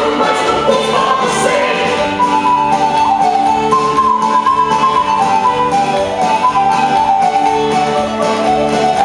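Latvian folk-dance music with a melody over a steady beat.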